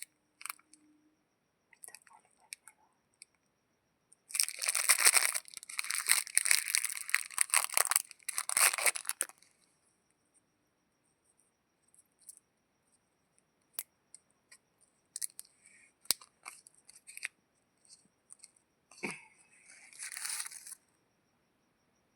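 Plastic chocolate-bar wrapper being torn open and crinkled. A dense run of crackling lasts about five seconds, followed by scattered small crinkles and clicks and a shorter burst of crinkling near the end.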